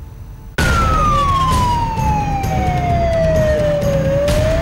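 Emergency vehicle siren wailing, starting abruptly about half a second in: its pitch falls slowly for about three and a half seconds, then begins to rise again near the end, over a steady low rumble.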